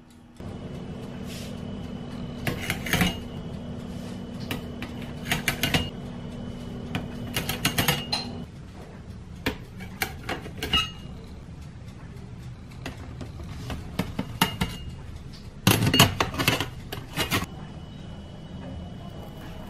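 Clinking and clattering of metal bakeware and utensils: fluted pie tins, a metal spatula and a knife knocking against tins and a wire rack, in several short clusters of sharp clicks over a steady low hum that drops away about eight seconds in.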